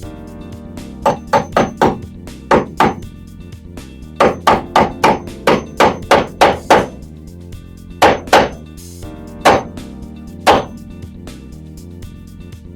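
Hammer driving cable staples over electrical wire: quick runs of sharp strikes, then a few single blows further apart near the end, over background music.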